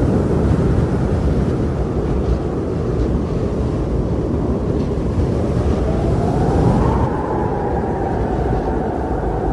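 Strong blizzard wind blowing in a steady low rush, with a whistling howl that rises about six seconds in and then slowly falls.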